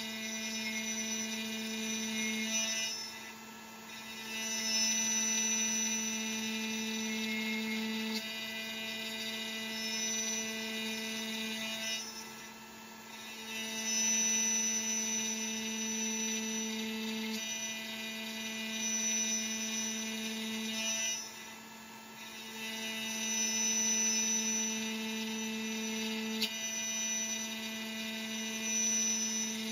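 Makera Carvera Air desktop CNC spindle at 12,000 rpm driving a single-flute carbide end mill through aluminium plate in a slotting cut: a steady high-pitched whine with cutting noise. It eases off briefly about every nine seconds between progressive step-down passes.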